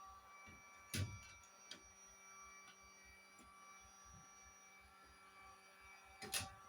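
Faint steady electrical hum, broken by two short sharp knocks, one about a second in and one near the end.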